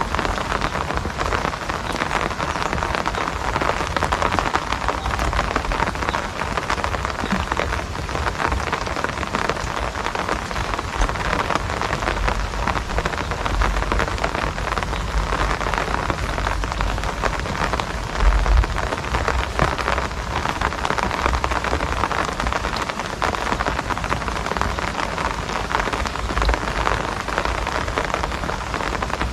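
Steady rain falling, a dense unbroken patter with occasional low rumbles underneath.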